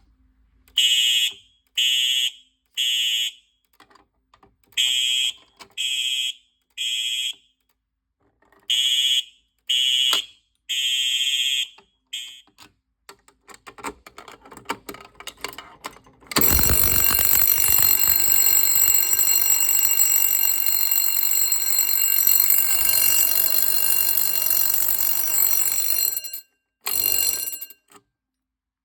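Fire alarm sounders during a test: high beeping in the three-beep evacuation pattern, three beeps then a pause, three times over. After a few seconds of quiet, a continuous alarm sounds for about ten seconds, stops, and sounds once more briefly near the end.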